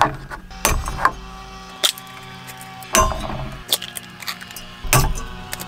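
Eggs being cracked against the rim of a small metal bowl and a plastic egg carrier being handled, a run of sharp clicks and knocks, over soft background music.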